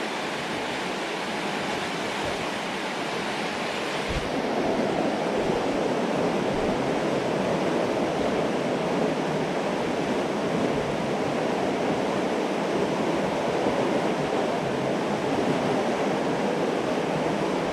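Steady rush of a flooded creek running fast in heavy current, growing a little louder about four seconds in.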